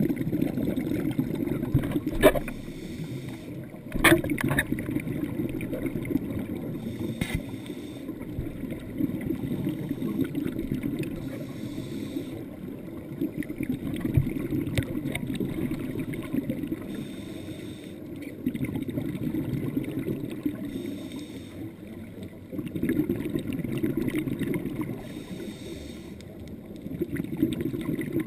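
Scuba diver breathing through a regulator, heard muffled through a dive housing: the exhaled air bubbles in swells that come and go every few seconds. Two sharp knocks sound in the first few seconds.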